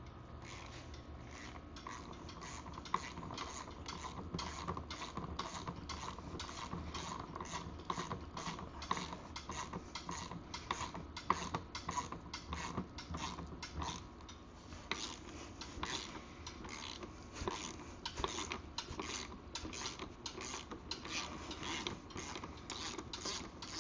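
A hand socket ratchet clicking in rapid, uneven runs of several clicks a second as a nut is worked on the dirt bike's wheel.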